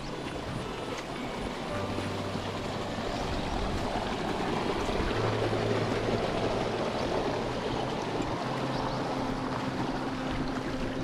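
A steady rushing noise that swells toward the middle, with low sustained background-music notes underneath that change every couple of seconds.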